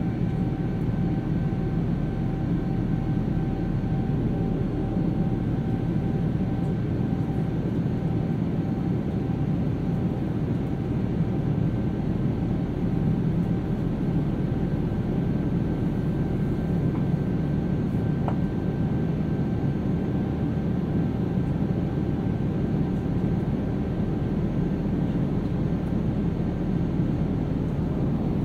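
Steady cabin roar of a Boeing 787-9 in its climb, the noise of its Rolls-Royce Trent 1000 engines and the airflow heard from inside the cabin. A faint steady whine sits above the roar and fades out about halfway through.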